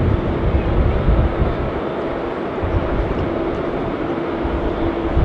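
Distant jet engines of an Airbus A330-300 running at low taxi thrust as the airliner turns to line up on the runway: a steady hum over a fluctuating low rumble.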